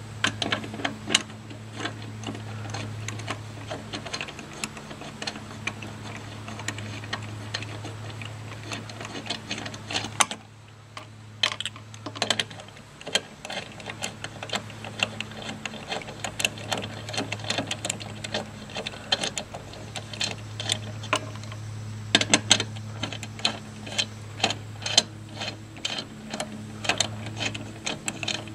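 Socket ratchet clicking rapidly as it spins lug nuts off a pickup truck's wheel, over a steady low hum. The clicking pauses briefly about ten seconds in.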